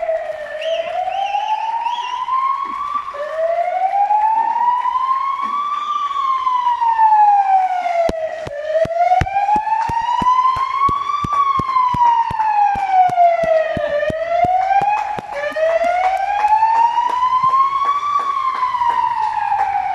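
Ambulance siren wailing: a slow tone that rises and falls over and over, each sweep a few seconds long. A run of sharp ticks comes through the middle.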